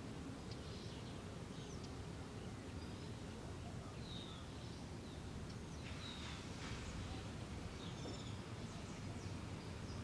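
Steady low background noise with faint short bird chirps and whistles now and then, several of them between about four and eight seconds in.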